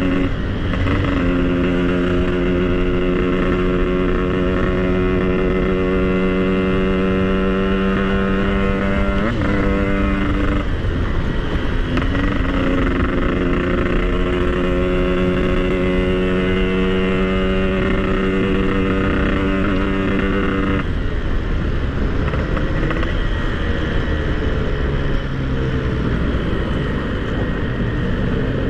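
Yamaha RX-King two-stroke single-cylinder motorcycle engine running at steady high revs while riding, with a short break in the note about nine seconds in before it picks up again. About twenty-one seconds in the throttle closes and the pitch falls as the bike slows.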